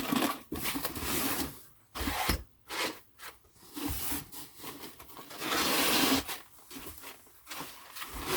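Rustling, rubbing and scraping of packaging as parts are handled and lifted out of a 3D printer kit box, in uneven bursts with short pauses and a couple of soft thumps about two seconds in.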